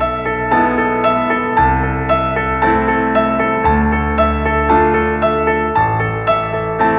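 Classical piano background music: a steady run of notes, about two a second, over low bass notes that change about every two seconds.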